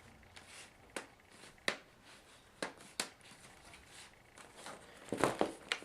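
Plastic screen cover (bezel) of an HP Pavilion dm4 laptop being pressed and snapped back into place along its edges: a series of short, sharp clicks, with a louder cluster about five seconds in.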